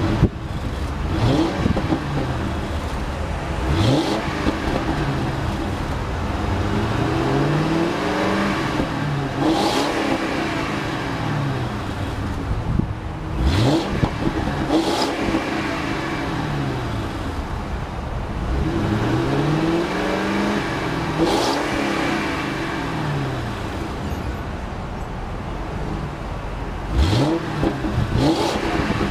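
Ford Crown Victoria LX Sport's 4.6-litre modular V8 exhaust, heard at the tailpipes, running and revved repeatedly. There are several quick blips that rise sharply and drop back, and a couple of longer, slower climbs and falls in revs, with the idle between them.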